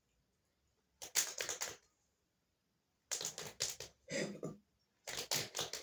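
A crunchy snack crackling in four short, crisp bursts, about a second, one, a half and one second long, with silence between them.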